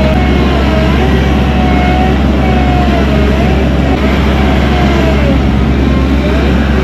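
Diesel engine of tracked heavy equipment running steadily under load, with a wavering whine that rises and falls, as the machine works to break its frozen tracks free.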